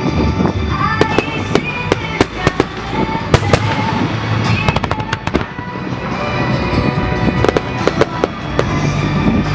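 Fireworks display: many shells bursting and crackling in quick succession, with music playing underneath.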